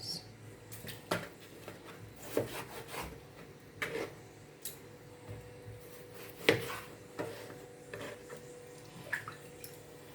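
Kitchen knife cutting up raw pork chops on a cutting board: irregular knocks and taps of the blade against the board, the loudest about six and a half seconds in.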